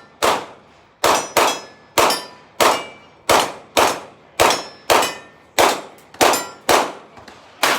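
Rapid string of about a dozen small-calibre gunshots, roughly one every half second or so, each with a short metallic ring after it.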